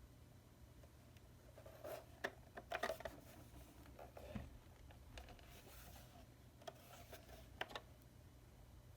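Faint handling noises: a scattering of light clicks and short scrapes, busiest about two to three seconds in, over a steady low hum.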